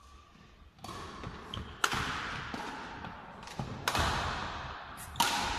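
Badminton rally: rackets striking the shuttlecock in several sharp smacks about a second apart, each ringing on in the echo of a large sports hall.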